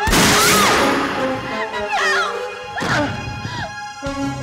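A loud pistol shot at the very start, ringing out over a second, with a weaker bang near three seconds, over dramatic background music and a woman's wailing cries.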